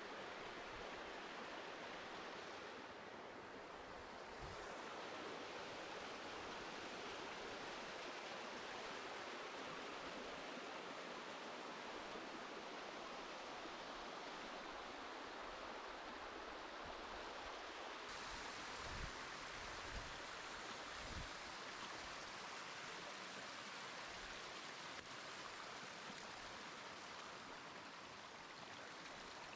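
Mountain stream running over rocks and small cascades: a steady rush of water. A few dull bumps sound a little past the middle.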